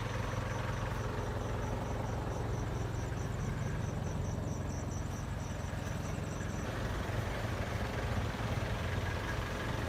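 A steady low engine rumble, like a vehicle idling, with a rapid high-pitched pulsing chirp over it that stops about two-thirds of the way through.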